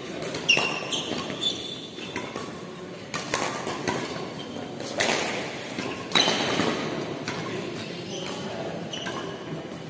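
Badminton doubles rally: rackets striking the shuttlecock with sharp hits a second or two apart, with short high squeaks of shoes on the court, echoing in a large hall.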